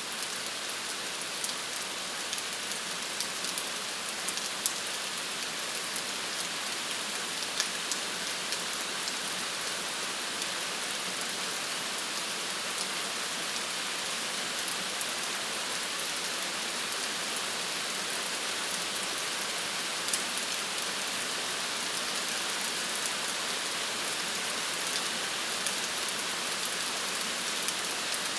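Steady rain falling, a constant hiss with scattered individual drop ticks.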